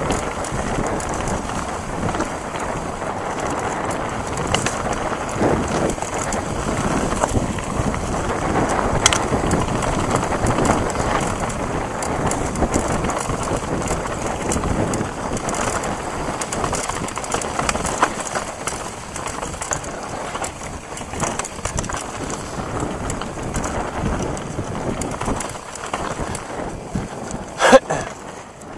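Mountain bike riding fast down a loose dirt trail: continuous tyre noise on dirt and dry leaves, rattling clicks from the bike, and wind on the microphone. One sharp loud clack near the end.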